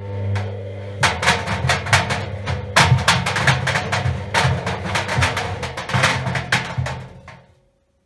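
Front-loading washing machine drum turning on its motor, with a steady low hum, while three tennis balls tumble inside and knock irregularly against the stainless steel drum and its paddles. The drum winds down and falls quiet about seven and a half seconds in.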